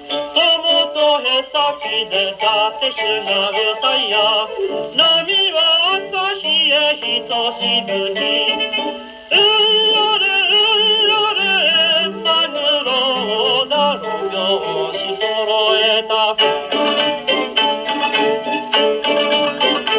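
A 1934 78 rpm shellac record playing on a Columbia G-241 portable wind-up gramophone, heard straight from the machine's acoustic soundbox. The music has no high treble. It dips briefly just before nine seconds in, then comes back in loudly.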